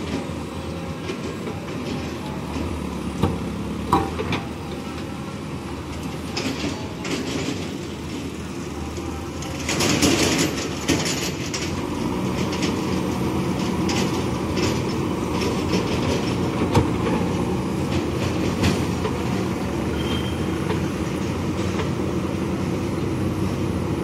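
JCB backhoe loader's diesel engine running steadily under load as the backhoe arm digs wet earth, with a few sharp knocks of the bucket and a louder stretch of a second or two about ten seconds in.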